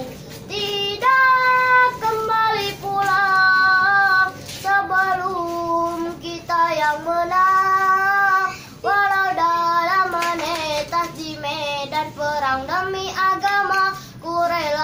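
A boy singing solo without accompaniment: an NU (Nahdlatul Ulama) song, sung in long held notes that bend and waver in ornamented phrases, with short breaths between them.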